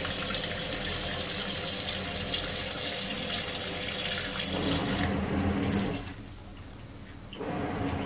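Water pouring from the fill inlet of a Midea top-load washing machine into its drum, a steady splashing rush that fades and stops about five to six seconds in. A quieter, lower sound comes in near the end.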